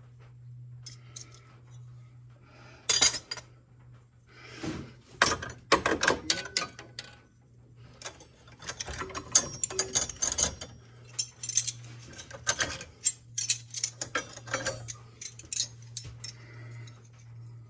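Metal wrenches clinking and clattering against each other as they are handled and sorted, in irregular bursts of sharp clicks, over a steady low hum.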